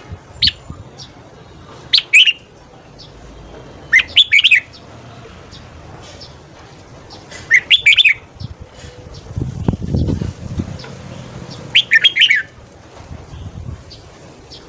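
Red-whiskered bulbul singing: five short, loud phrases of quick whistled notes, a few seconds apart.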